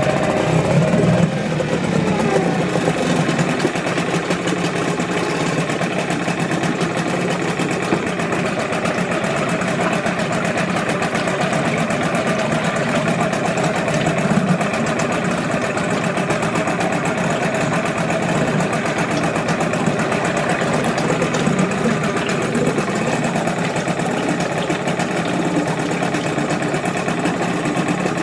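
Mariner 4 hp two-stroke outboard motor running steadily, on a 20:1 fuel-oil mix after 29 years in storage.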